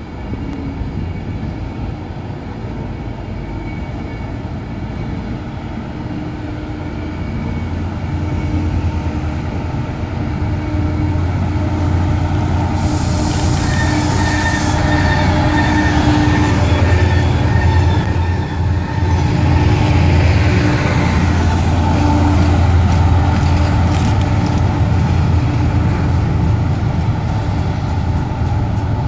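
Two Class 68 diesel-electric locomotives running in with a freight train, their Caterpillar V16 diesel engines drumming steadily and growing louder as they draw near and pass, with a short burst of high hiss about thirteen seconds in. The wagons then roll by with the wheels squealing on braking.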